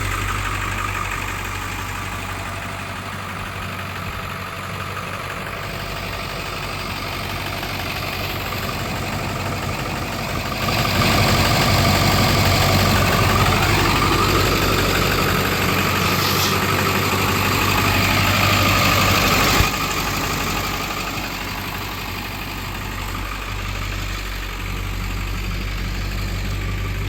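1999 Ford F350 engine idling steadily, growing louder for about nine seconds midway with a slowly rising and falling pitch, then settling back.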